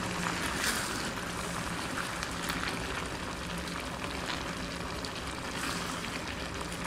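Cornstarch-thickened chopsuey sauce simmering under a heap of vegetables in an electric skillet: a steady bubbling hiss with scattered small pops over a faint low hum.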